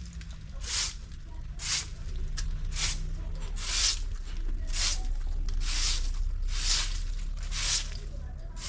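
Short hand broom of dry stalks swept in strokes across brick paving, brushing up fallen leaves: a regular swish about once a second.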